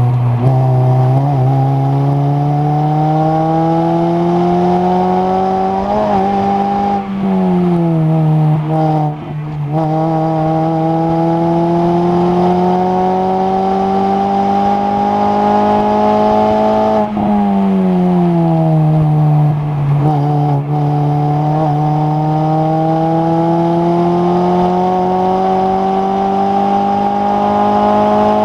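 A racing Mini's engine heard from inside the car, accelerating hard on track: the engine note climbs steadily in long pulls and falls back at gear changes or lifts, about six seconds in, briefly around nine seconds, and again around seventeen seconds, before climbing once more.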